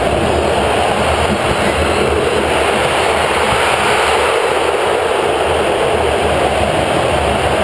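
Large football stadium crowd, a steady loud wash of crowd noise with no single voice standing out.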